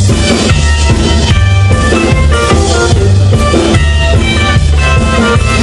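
Rockabilly band playing live: electric guitar, acoustic guitar and upright bass over a steady beat.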